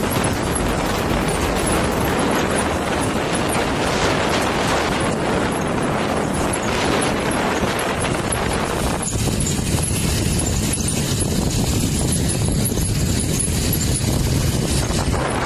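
Wind buffeting a phone's microphone on a moving motorcycle, a loud steady rush over the road and engine noise. About nine seconds in, the hiss thins and the low rumble grows stronger.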